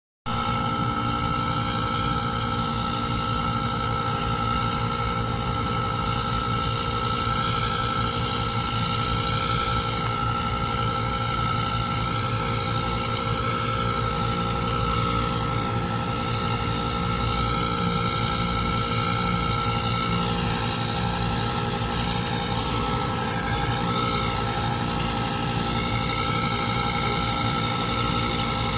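Massey Ferguson 7715S tractor's six-cylinder diesel running steadily under load while towing an Abbey tanker that is spreading, with a steady high whine over the engine.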